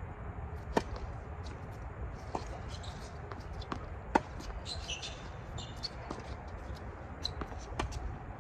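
Tennis balls struck by racquets in a rally on an outdoor hard court: a serve about a second in, then hits every second and a half to two seconds. The near player's forehand near the middle is the loudest, with fainter ticks of bounces and returns between and a steady low rumble underneath.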